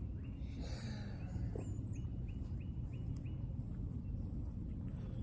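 A bird calling a rapid series of short, evenly repeated notes, about three a second, that stops about three seconds in, over a steady low rumble of wind on the microphone.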